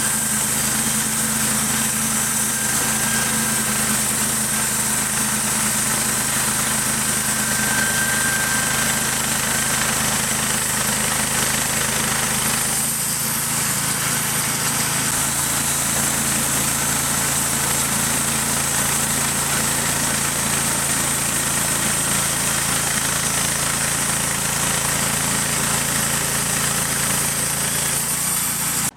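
Sawmill engine running steadily under load; its low note shifts about halfway through, and the sound cuts off sharply at the end.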